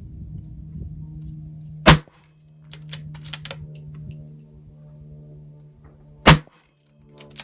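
Two unsuppressed rifle shots from a Ruger 77/17 bolt-action in .17 HMR, sharp cracks about four and a half seconds apart, with light clicks between them.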